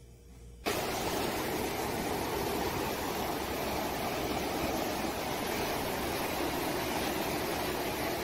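A steady, even rushing noise with no rhythm that starts abruptly just under a second in.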